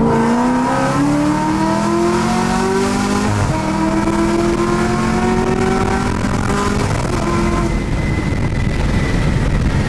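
Supercharged V8 of a 6th-gen Camaro ZL1 with a six-speed manual, heard from inside the cabin on a hard pull: the engine rises in pitch, drops at an upshift about three seconds in, climbs again through the next gear, and the pull ends around seven seconds in.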